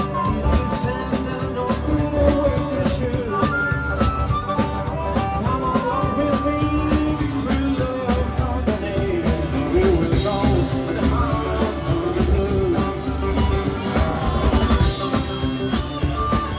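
Live blues band playing: drum kit and electric guitar, with harmonica and a man singing over them.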